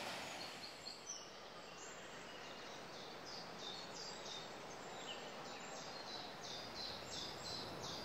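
Small birds chirping in a run of short high notes, about three a second, over a steady rush of wind.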